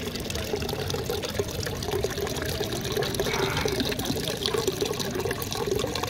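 Small decorative rock fountain: a thin stream of water trickling and splashing steadily down over stones into a little pool.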